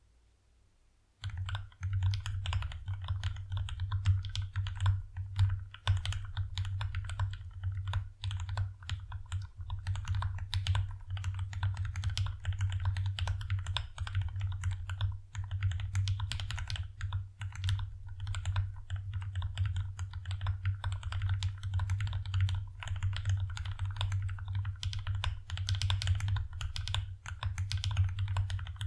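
Steady, continuous typing on an Alice-layout mechanical keyboard with lubed Gateron Black Ink linear switches, an aluminium plate and Infinikey Port keycaps. It starts about a second in, over a steady low hum.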